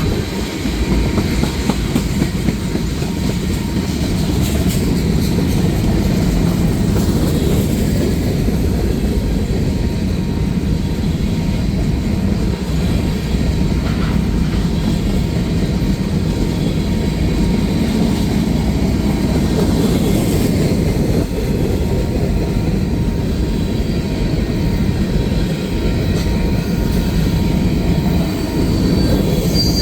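Cars of a manifest freight train rolling past on the rails: a steady rumble of wheels on track, with a faint high wheel squeal near the end.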